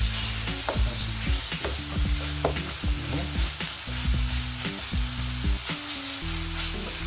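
Onions and green peppers sizzling in a pan while a spoon stirs them, knocking and scraping against the pan in irregular clicks. Music with a low, stepping bass line plays underneath.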